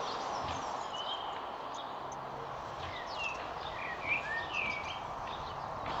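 Small birds chirping in short, quick calls, busiest in the second half, over a steady background rush.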